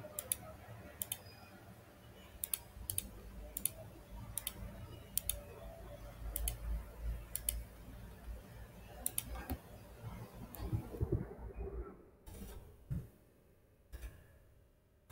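Computer mouse clicking: a dozen or so sharp clicks at irregular intervals, some in quick pairs, over a low background hum.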